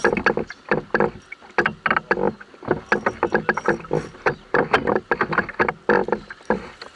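Quick, irregular knocks and clatter in and against a canoe, several a second.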